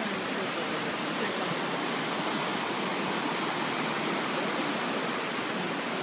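River water rushing steadily in a shallow sheet over a broad, flat bedrock shelf, a constant even hiss of flowing water.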